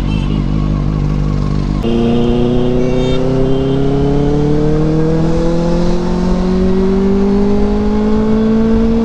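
Motorcycle engine, running low in slow traffic, then opening up about two seconds in and climbing steadily in pitch as the bike accelerates in one long gear.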